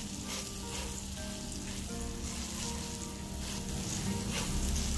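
Sirloin steak searing in melted butter in a hot pan: a steady sizzle with light crackling.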